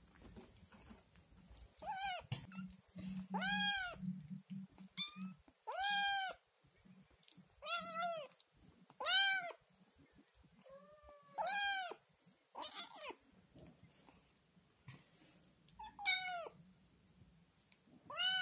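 A kitten meowing loudly and insistently, about ten high, arching calls one to two seconds apart: a kitten begging for food at the sight of yogurt.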